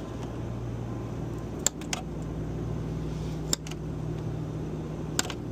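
Steady low machine hum with a few sharp metallic clicks from hand tools and parts being handled, four in all, spaced irregularly.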